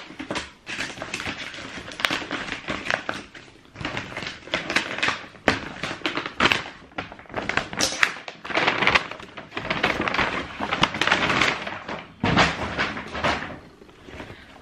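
Cardboard shoe boxes and their packaging being handled: irregular rustling and scraping, with light knocks and taps.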